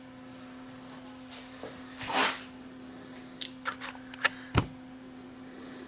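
Light clicks and knocks from a handheld multimeter and its probe leads being handled and set in place on a workbench, over a low steady hum. There is a soft rustle about two seconds in, and a quick run of clicks late on ends in one sharper knock.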